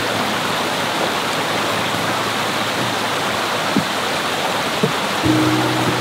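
Steady rushing water, an even hiss. Held music notes come in near the end.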